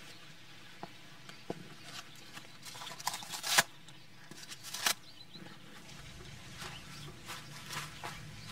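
Rustling and scraping of a folding egg-crate foam sit pad being pulled out of a backpack, with small clicks and two louder short scrapes about three and a half and five seconds in.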